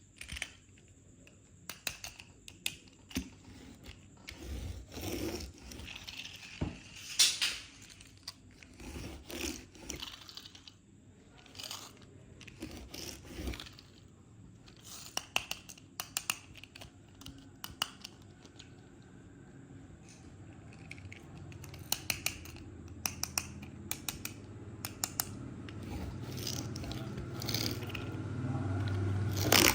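Toy packaging being handled and opened by hand: irregular scrapes, clicks and crinkles of plastic and cardboard, with a low hum that grows louder toward the end.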